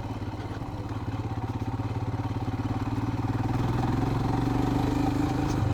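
Royal Enfield Himalayan's single-cylinder engine running under way, growing gradually louder over the few seconds.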